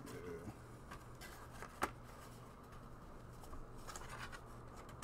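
Faint rustling of lined paper refill pages being handled on the metal rings of a small leather ring binder, with one sharp click about two seconds in.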